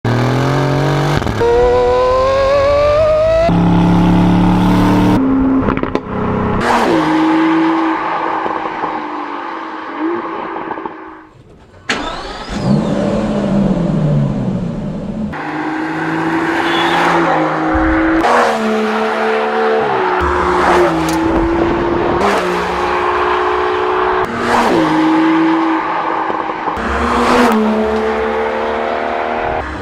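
Aston Martin engine and exhaust revving hard and accelerating through the gears, the pitch climbing and dropping back at each of many upshifts. There is a brief lull about eleven seconds in before it pulls again.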